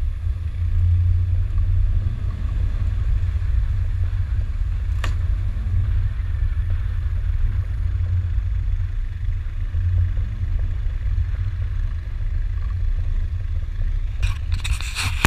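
Land Rover Discovery 2 driving slowly along a grassy off-road trail, heard from on board as a steady low rumble. There is a single sharp click about five seconds in, and a burst of crackling clatter near the end.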